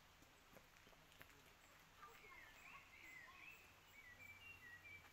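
Faint woodland birdsong: a string of short whistled notes that slide up and down, starting about two seconds in, over a quiet background with a couple of faint clicks before it.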